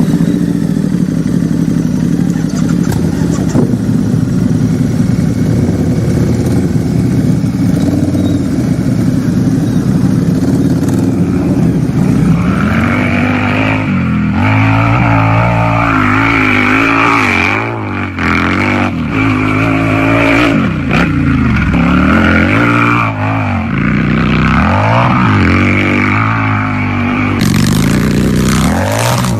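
Harley-Davidson motorcycle's V-twin engine idling steadily for about twelve seconds. Then it is revved over and over, the pitch climbing and dropping back several times in a row.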